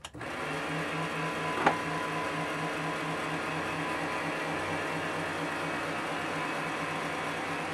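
MX-210V benchtop metal lathe starting up and running steadily: a steady whine with a low throb about four times a second. A single sharp click a little under two seconds in.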